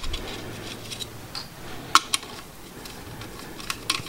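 Small metal clicks and taps as 8mm nuts are handled and threaded by hand onto the rear studs of an alternator, with two sharp clicks close together about two seconds in and a few more near the end.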